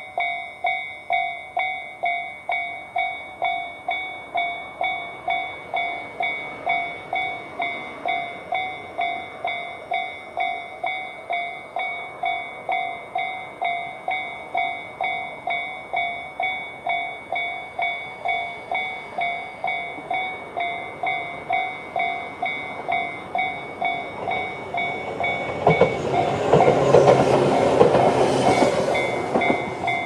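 Japanese level-crossing electronic warning bells (Tobu "sound C" type) ringing from both sides of the crossing, just under two strokes a second. About 25 seconds in, a Tobu 10000 series electric train runs over the crossing for about four seconds, louder than the bells, then the ringing goes on alone.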